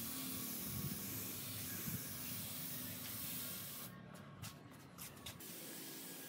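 Compressed-air gravity-feed spray gun hissing steadily as it sprays finish onto pine wood. About four seconds in, the hiss breaks off several times in quick short gaps, then carries on a little quieter.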